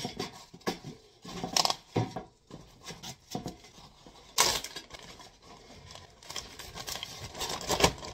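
Handling noises of fibre seed-starting pots being stacked and scraped on a metal baking tray: irregular light knocks and scrapes, with a loud rustle of packaging about four seconds in.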